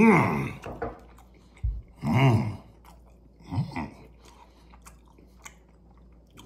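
A man chewing a big mouthful of syrup-soaked croissant sandwich, with small wet mouth clicks, and three short moans through the full mouth: at the start, about two seconds in and about three and a half seconds in.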